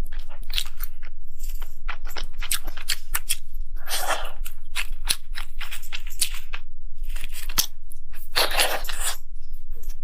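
Close-up eating sounds: a dense run of crisp crunches and wet clicks of chewing, with two longer, louder crunching stretches, about four seconds in and again near nine seconds. A steady low hum runs underneath.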